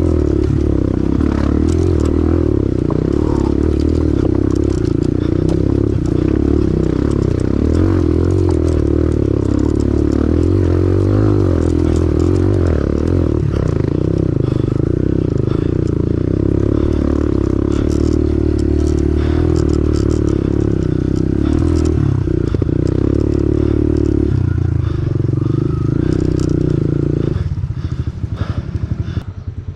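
Pit bike engine running steadily under throttle while riding rough off-road trail, with rattling and scraping from the bike over the ground. Near the end it drops back to an idle with an even, slower beat.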